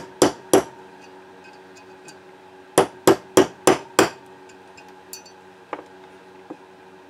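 Small hammer tapping a pin punch to drive the ejector pivot pin out of a Vz.50 pistol slide: two taps, a pause, then a quick run of six taps about four a second. Two faint clicks follow near the end.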